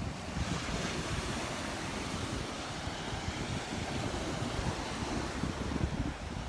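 Surf washing on a sandy beach, with wind gusting against the microphone in an uneven low rumble.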